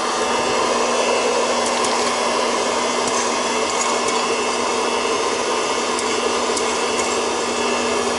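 Proctor-Silex Popcorn Pumper hot-air popcorn popper running: a steady rush from its hot-air blower with a low hum, and a few scattered pops of kernels bursting as the popping gets under way.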